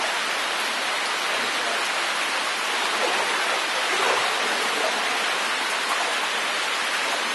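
Steady hiss of rain falling on the river's surface.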